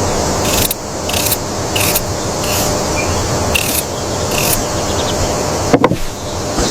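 Repeated short rasping scrapes, roughly one or two a second, over a steady hiss, with a sharp click near the end.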